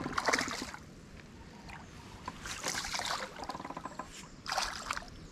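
A hooked bass splashing and thrashing at the water's surface beside a small boat while it fights the line. The splashing comes in three bursts: at the start, about three seconds in, and again near the end.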